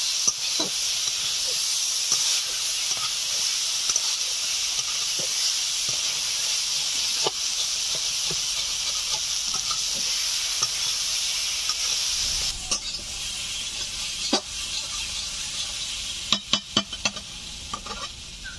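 Green peas and boiled potatoes sizzling in hot oil in a kadai while being stirred, with small ticks and scrapes from the spatula. About twelve seconds in, the sizzle drops away suddenly, and a few sharp taps follow near the end.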